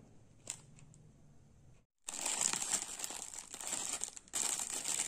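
Polythene packaging crinkling and rustling as it is handled and pulled open. It starts loudly about two seconds in, after a faint stretch with a single click.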